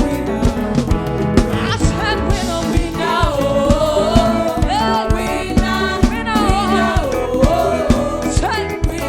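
Live African gospel praise music: a sung melody with vibrato over a band with a steady drum beat and bass.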